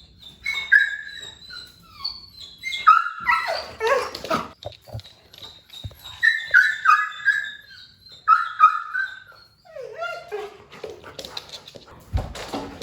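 Large goldendoodle whining and yipping in five or so short bouts of high calls that slide down in pitch. Near the end there is a thud and a rustle.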